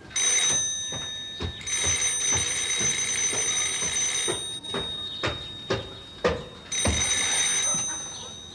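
Old-fashioned telephone bell ringing in long rings, with a pause of about two seconds before the last one. Footsteps knock on wooden boards between and under the rings.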